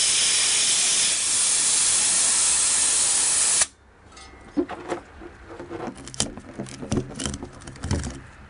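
Helium hissing loudly and steadily from a disposable helium tank's nozzle into a latex balloon, cut off sharply about three and a half seconds in. Scattered light clicks and rubbing follow as the balloon is handled.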